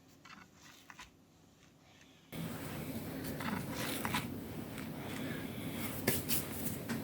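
Kitchen handling noises over room tone: a few faint clicks, then from about two seconds in, scattered short clicks and scrapes of food preparation.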